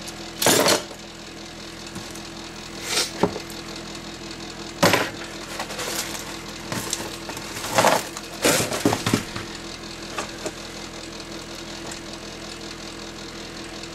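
Salvaged scrap parts from a CRT monitor clattering as they are taken off and set onto a plastic digital scale, several separate knocks and rattles, over a steady hum.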